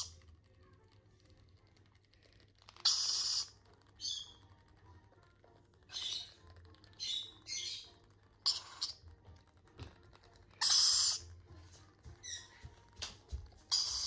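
Baby rainbow lorikeets squawking in short, raspy bursts while being spoon-fed, food-begging calls of hand-reared chicks. About ten harsh calls come at uneven intervals, some in quick pairs.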